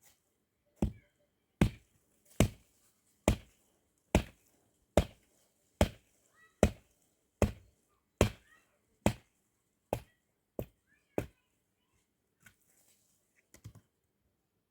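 Firewood being chopped with an axe: about fourteen evenly spaced strokes, a little under one a second, the last few weaker, stopping about eleven seconds in.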